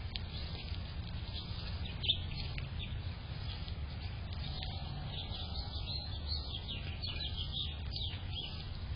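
Small birds chirping, many short high calls coming thick and fast, busiest in the second half, over a steady low background rumble, with one brief tap about two seconds in.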